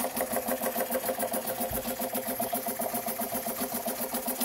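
Jensen 50 model steam engine running on steam with a fast, even beat, driving its feed water pump, which is now working after repair.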